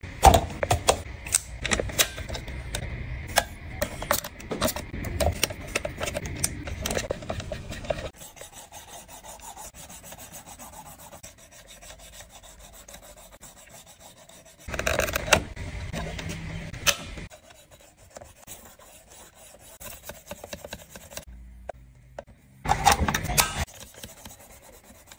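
A sharpening stone on a guided-angle knife sharpener scraping back and forth along a clamped steel knife blade. The rasping comes in spells, with a louder busy stretch of knocks and clicks over the first several seconds, a quieter stretch, then two louder spells near the middle and near the end.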